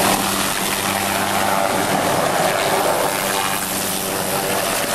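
Hughes 500D helicopter's Allison turboshaft engine and five-blade main rotor running at flight power close by as it lifts off and hovers: a steady, loud rush of turbine and rotor noise with a low hum underneath.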